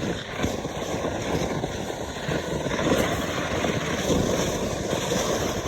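Sled board sliding fast down a snowy slope: a steady rushing of wind over the phone's microphone mixed with the rumbling scrape of the board on the snow.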